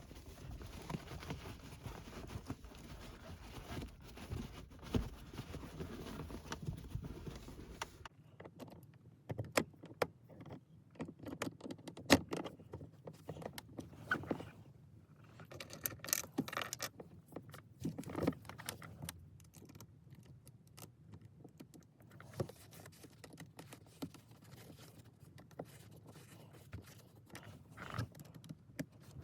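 Irregular clicks, rattles and scrapes of hands working a shift boot and knob down over a car's gear shifter and console trim, with a light metallic jingle. A low background hum drops out about eight seconds in.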